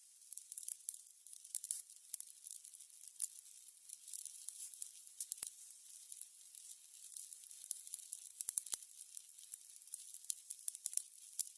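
Burning candles crackling: a steady run of small, sharp, high-pitched crackles over a faint hiss, with a few louder pops now and then.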